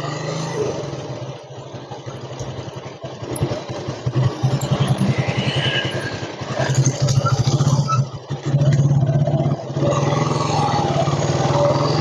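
Motorcycle engine running as the bike rides off slowly, its low, rapidly pulsing hum rising and falling with the throttle, with brief dips about eight and nine and a half seconds in.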